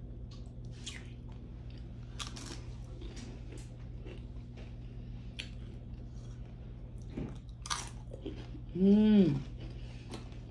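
Crunching and chewing of Doritos tortilla chips, with scattered crisp bites. About nine seconds in, a person hums briefly, the pitch rising then falling; this is the loudest sound.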